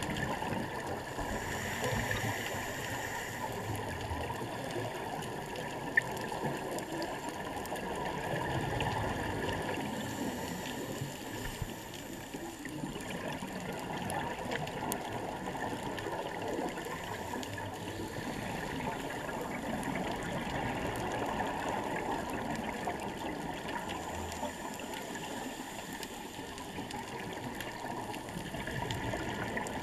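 Underwater sound heard through a submerged camera: a steady wash of water noise, with humpback whale song calling faintly behind it. One sharp click about six seconds in.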